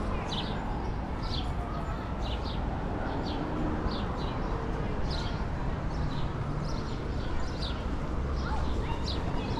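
City street ambience: a steady low rumble of traffic, with short high clicks about twice a second.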